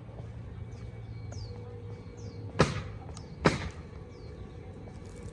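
Two sharp bangs about a second apart, over a steady low outdoor rumble, with a small bird chirping in short falling notes.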